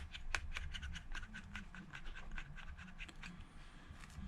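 Quick, faint ticks and scratches of a precision pentalobe screwdriver working the bottom screws of an iPhone 6, with a sharper click right at the start and another about half a second in.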